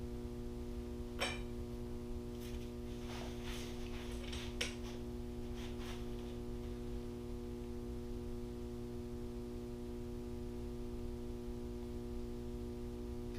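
Background music: a steady sustained chord holding unchanged, with a few faint clicks in the first half.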